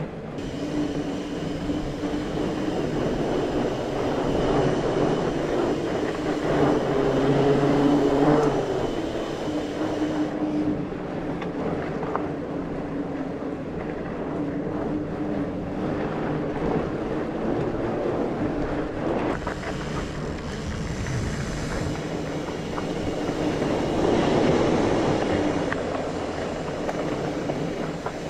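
Mountain bike riding a dirt trail: a steady rushing noise from the tyres rolling and air moving past, broken by scattered knocks and rattles from the bike.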